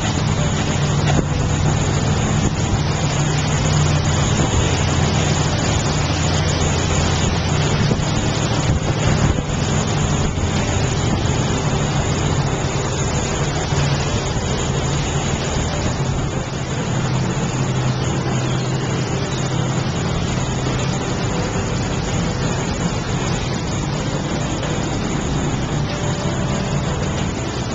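Small motorboat's engine running steadily, a low drone that eases a little about halfway through.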